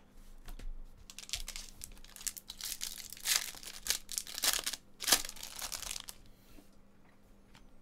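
Foil wrapper of a pack of baseball cards crinkling and tearing as it is ripped open by hand: a run of crinkles over a few seconds, loudest about three and five seconds in.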